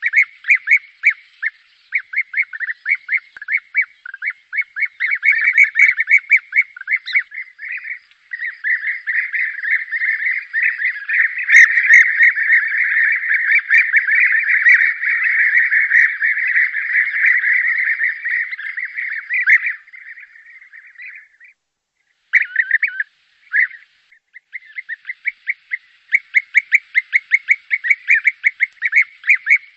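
A flock of European bee-eaters calling: short repeated calls from many birds, part of a mixed call recording used as a hunting lure. The calls thicken into a dense overlapping chorus about a third of the way in, break off briefly past two-thirds, then resume as separate repeated calls.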